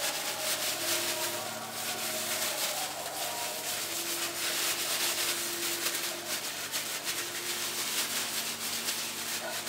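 A hand inside a plastic bag rubbing cream cleanser over a steel teapot: a steady rustling scrub of plastic on metal, polishing the teapot clean.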